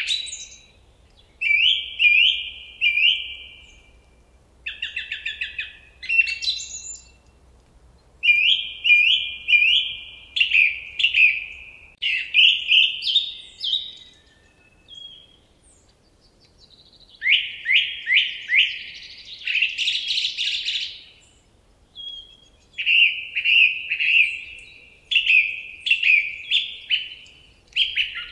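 Songbirds chirping in short phrases of quick, repeated high notes, with brief pauses between phrases.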